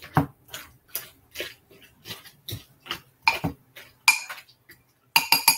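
A spoon stirring thick tomato soup in a pot, knocking and scraping against the sides in a string of clinks a few times a second. Near the end come four quick clinks close together.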